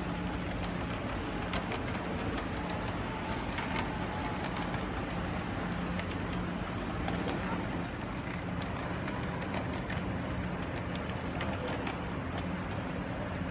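LGB G-scale model trains running on the layout track: a steady rumble and hum of motors and wheels, with scattered light clicks.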